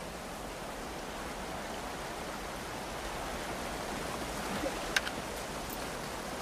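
A mountain stream running steadily, with a short sharp click about five seconds in.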